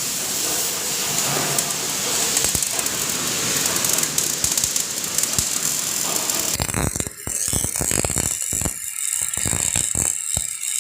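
MIG welding arc with a steady dense crackling hiss. About six and a half seconds in it changes to sharp, irregular crackles and pops with short gaps between them.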